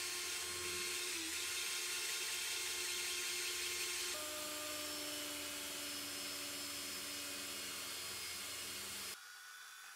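Electric drill motor running with a steady whine as it spins a small rocket part being sanded, a light sanding hiss over it. The pitch shifts about four seconds in, and the whine stops about a second before the end.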